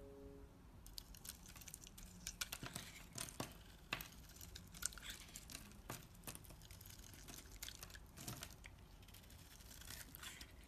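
A knife cutting through soap: a run of fine, irregular crackles and clicks as the blade goes through, with a few sharper cracks.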